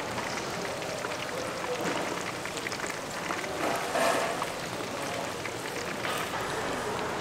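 Hot oil in a deep fryer sizzling steadily, with many small crackles, as battered food fries.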